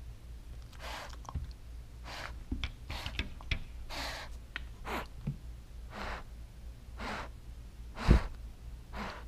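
A cat breathing heavily close to the microphone, one hissy breath about every second, with a few small clicks. One loud low thump comes about eight seconds in.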